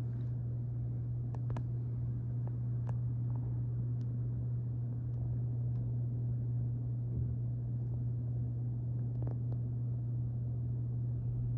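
A steady low mechanical hum that holds an even level throughout, with a few faint clicks.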